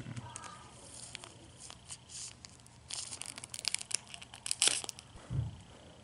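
Plastic wrapping crinkling and tearing in irregular rustles and sharp crackles, busiest in the second half.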